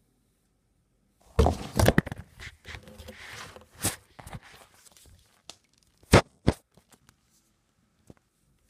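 Handling noise: a cluster of thumps with rustling and scraping starting just over a second in and lasting a few seconds, then two sharp knocks about six seconds in.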